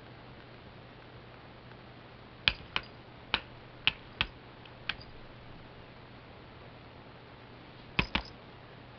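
A cat's paws and claws tapping against a laptop: sharp, irregular clicks, six in quick succession, then a close pair near the end.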